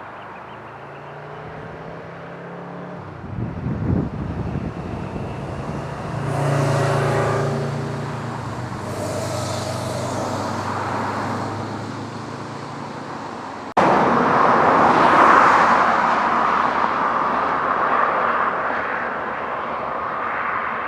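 Motor vehicle engine running with a steady low hum and some hissing, like road traffic. About 14 s in the sound changes abruptly to a louder rushing noise.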